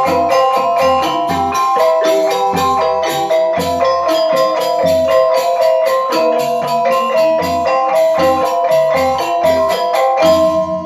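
Balinese semar pegulingan gamelan playing: bronze metallophones keep a fast, even stream of struck notes over regular low strokes. Near the end the rapid strikes stop on a final stroke and the bronze tones are left ringing, closing the piece.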